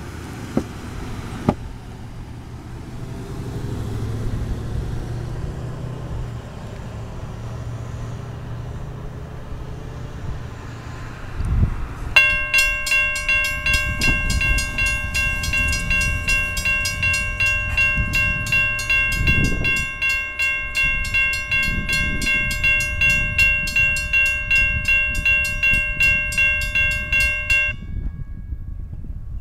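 Railroad grade-crossing warning bell starting to ring about twelve seconds in, striking about twice a second, as the crossing signals warn of an approaching train; it falls silent near the end as the gates come fully down. Before it, a low rumble of road traffic.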